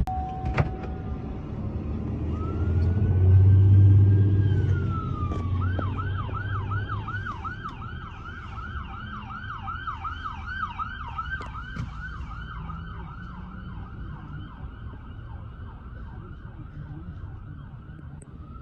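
Fire truck passing with its electronic siren running: a slow rising and falling wail that switches to a fast yelp, fading as the truck moves away. The truck's engine rumble is loudest about four seconds in, as the wail tops out.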